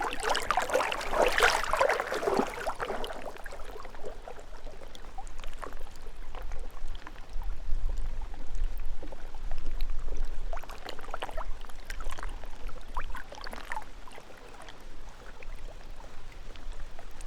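Lake water flowing and gurgling in uneven surges, strongest in the first few seconds and again about ten to fourteen seconds in, with a low rumble in the middle.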